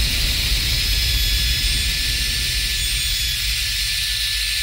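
Ryobi handheld router running at full speed with a steady high whine, its bit routing a wooden snare-drum hoop.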